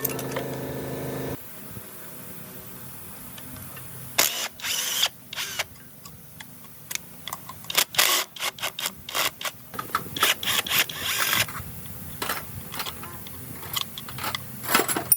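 A power tool runs with a steady hum, then cuts off suddenly about a second and a half in. After a pause comes a long run of irregular sharp clicks, knocks and scrapes of hand work on metal engine parts.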